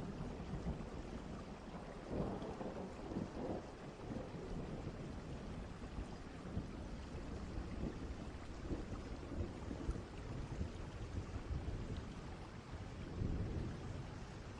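Distant thunderstorm: steady rain with low rumbles of thunder, swelling about two seconds in and again near the end.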